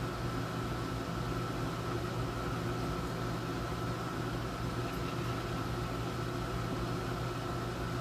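Room air conditioner running steadily: an even hiss with a low hum and a faint, thin, steady whine.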